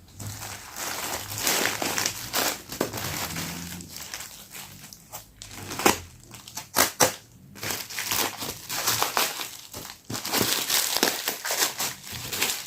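Parcel packaging crinkling and rustling as it is handled and opened by hand, with a few sharper crackles about halfway through.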